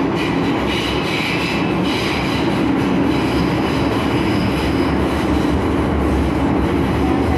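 MTR Tsuen Wan Line M-Train under way: steady, loud running noise of the train, with a high squeal over it for roughly the first five seconds.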